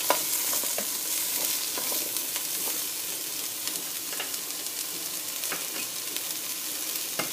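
Sliced carrots and onions sizzling in olive oil in a pot, stirred with a wooden spoon that gives occasional light knocks against the pot.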